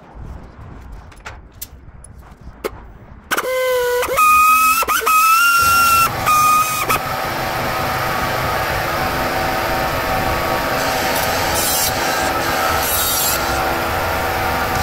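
A few light handling clicks, then a small cordless grinding tool starts about three seconds in with several short runs, its whine dipping and rising. From about seven seconds it runs steadily, grinding away the plastic of a car radiator grille frame.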